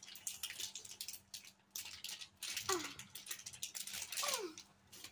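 Thin plastic packet crinkling and rustling in the hands as slime is squeezed out of it, with two short squeaks that fall in pitch, one about two and a half seconds in and one about four seconds in.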